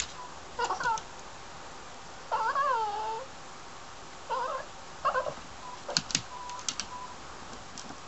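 A cat meowing four times in short, bending calls, the longest about two seconds in, followed by a run of sharp clicks a few seconds later.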